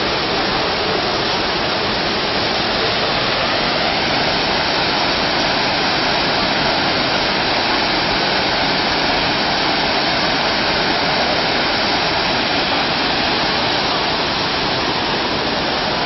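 Waterfall water falling and splashing, a loud, steady rushing noise.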